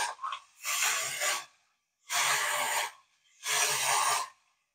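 Clockwork tin toy dog running on its wound spring: its mechanism gives out a short burst of mechanical noise about every second and a half, three full bursts here.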